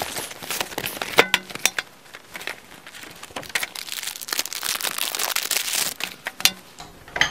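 Clear plastic wrapping crinkling and rustling as it is pulled off a graphics card, with a few sharp clicks about a second in. The crinkling is densest in the last couple of seconds before it stops.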